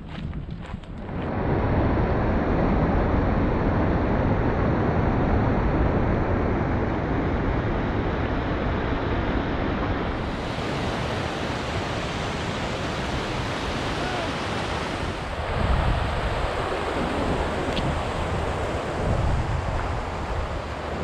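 A mountain stream rushing over rocks, a steady roar of water mixed with wind buffeting the microphone.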